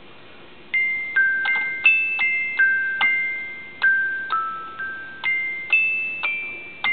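Glockenspiel sound from a MIDI Plus mini USB MIDI-to-audio module, played an octave up from a mini keyboard: a simple tune of about fourteen high, bell-like notes, each struck and ringing away, starting about a second in.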